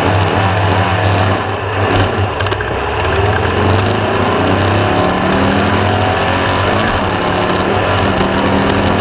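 The air-cooled VW 1600 engine of a Class 1/2-1600 off-road race buggy running under load, its pitch climbing and dropping as it revs.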